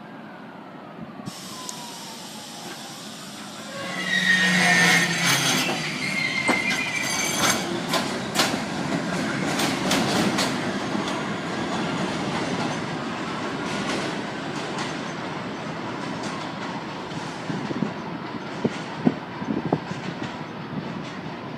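New York City subway train running on the elevated track. It comes in loud about four seconds in, with high wheel squeal and a run of sharp clacks over the rail joints, then settles into a steady rumble that slowly eases off. A distant siren rises and falls faintly in the background.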